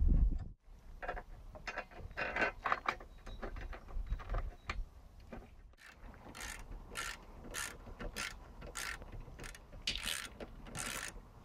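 Socket ratchet wrench clicking in repeated short strokes while bolts are tightened. After a brief low rumble at the very start, the strokes come in clusters, then settle at about two a second from about halfway in.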